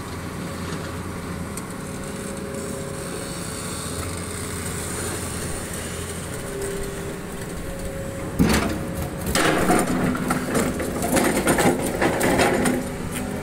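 Hydraulic excavator's diesel engine running steadily. About eight seconds in there is a sharp knock, then several seconds of loud, irregular grating and scraping as the excavators' steel bucket and hook push against the granite block.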